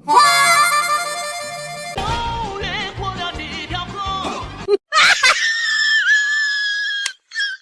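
Music: a held chord for about two seconds, then a short tune with a beat, then one long high held note that cuts off suddenly near the end.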